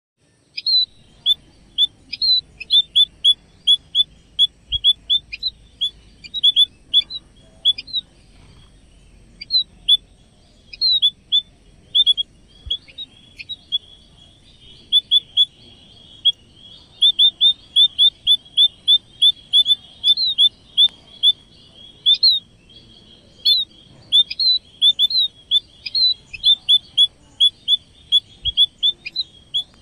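Munias (emprit) chirping: short, sharp, high chirps repeated in quick runs of several a second, going on steadily.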